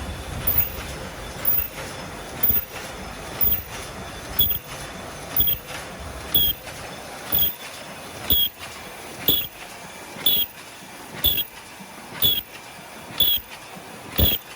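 Paper bowl making machine running, with a sharp mechanical clack about once a second as it cycles, over a steady machine noise.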